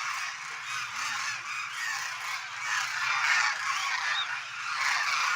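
A large flock of demoiselle cranes calling together, many overlapping calls at once, swelling a little louder about three seconds in.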